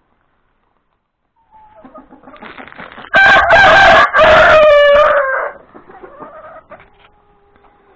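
A rooster crows once, loud and close, for about two and a half seconds, the call falling in pitch at its end. Before and after the crow, hens cluck softly; the sound starts about a second and a half in.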